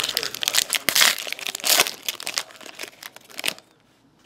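Foil wrapper of a Select hockey card pack crinkling as it is handled and torn open, stopping abruptly about three and a half seconds in.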